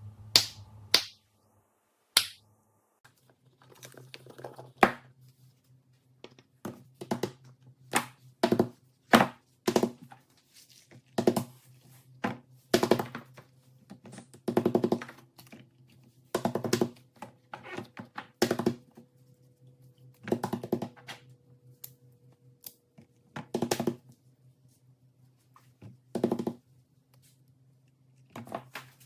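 Irregular sharp taps and clicks, about one or two a second, some in quick clusters, over a faint steady low hum.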